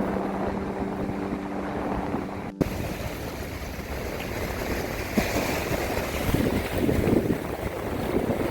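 A held musical chord that cuts off abruptly about two and a half seconds in, followed by wind buffeting the microphone and waves breaking on a beach.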